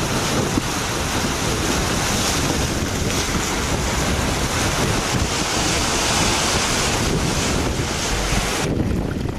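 Wind buffeting the microphone over the wash of sea surf: a loud, steady rushing noise with a low rumble. The hiss thins out suddenly just before the end.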